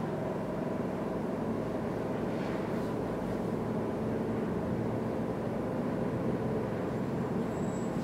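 Steady machine hum with a low drone and faint steady tones, unchanging throughout.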